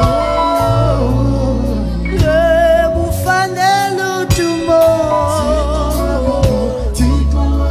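Live band playing a gospel song, with a male lead singer over electric guitar, keyboard and deep sustained bass notes. The voice holds long notes and, in the middle, runs through a wavering, ornamented line.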